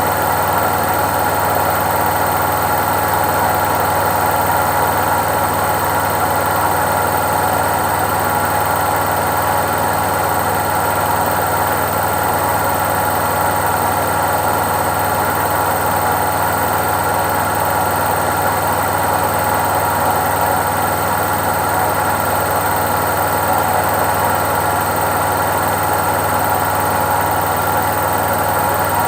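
Indesit IWC71252 washing machine on its spin cycle: a steady, unchanging whirr and hum of the drum spinning at speed, with a constant whine over it.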